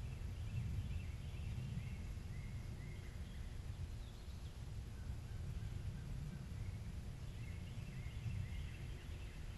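Faint bird calls, short chirping notes in two runs, one near the start and another near the end, over a low steady rumble.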